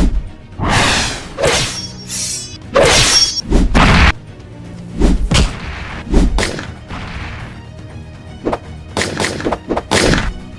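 Cartoon fight sound effects: a rapid, irregular series of whooshes and heavy hits and crashes, over background music.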